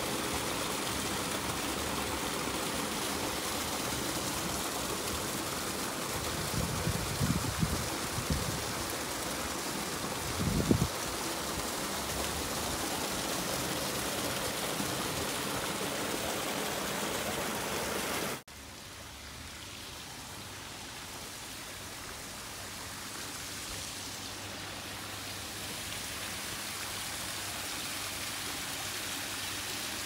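Steady rush of running water at a koi pond, with a few low bumps on the microphone about a quarter and a third of the way in. About two-thirds through it drops off suddenly, then returns quieter and slowly grows louder.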